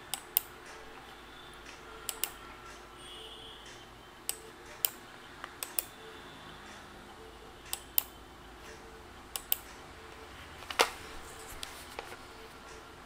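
Computer mouse clicking: about fifteen short, sharp clicks, single and in quick pairs, over a faint steady room hiss. The loudest click comes near the end.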